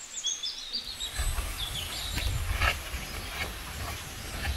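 Outdoor ambience: birds chirping in short high calls, mostly in the first second, over a steady low wind rumble on the microphone, with a few faint ticks.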